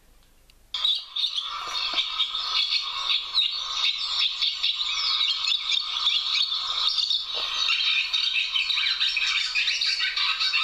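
Recorded swallows twittering: a dense stream of rapid chirps, short warbles and rattling notes that starts about a second in and keeps up without a break.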